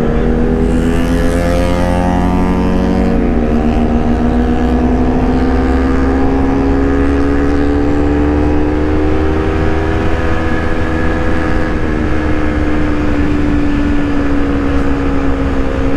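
Honda CBR250RR's parallel-twin engine accelerating hard, its pitch climbing through the gears with two upshifts, about three seconds in and about twelve seconds in, over a steady rush of wind on the microphone.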